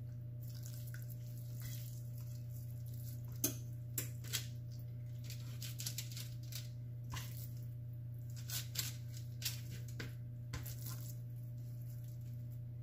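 Scattered soft pats and light taps as raw breaded chicken breasts are laid and pressed flat on a parchment-lined baking sheet, with a steady low hum underneath.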